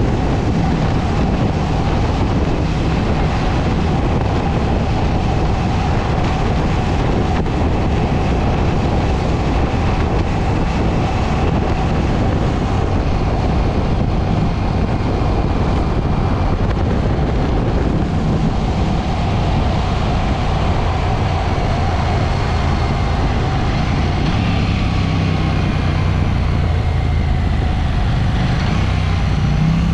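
KTM 790 Duke's parallel-twin engine running steadily as the motorcycle rides along, mixed with a constant rush of wind and road noise on the microphone.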